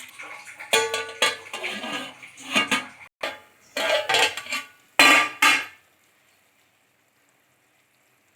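Metal kitchenware clattering: a spoon or ladle knocking and clinking against a cooking pot, several sharp knocks with brief metallic ringing. It stops suddenly about six seconds in.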